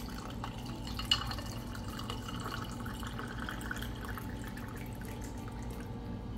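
Lemonade pouring from a pitcher into a glass of ice cubes, a steady splashing stream with one sharp clink about a second in. The pour stops near the end.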